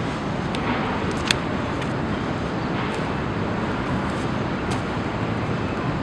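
Steady outdoor city traffic din, with a sharp click about a second in and a fainter one later.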